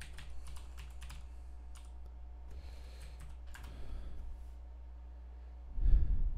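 Computer keyboard typing: a quick run of key clicks, then a few more keystrokes about three seconds in. Near the end comes a single louder low thump.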